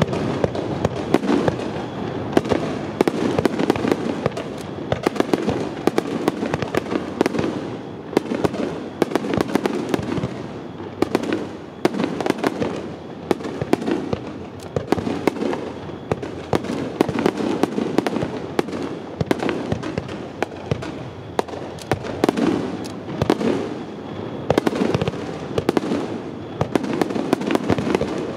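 Fireworks display going off: many sharp bangs in quick succession, overlapping one another over a steady rumble of bursts.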